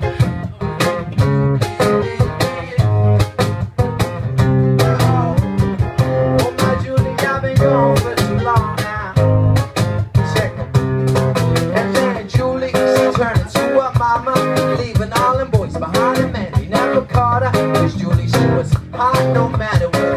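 Live band playing a song: electric guitars and bass guitar over a steady beat, with a male voice singing into a microphone.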